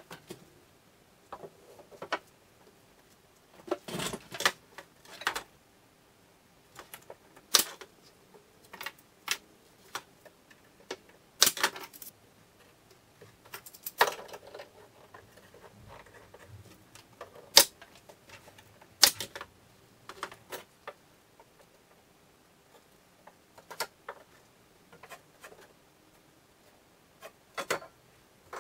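Irregular sharp clicks and knocks with quiet gaps between them, from bar clamps being fitted and tightened on a wooden cabinet face frame and from the wood being handled.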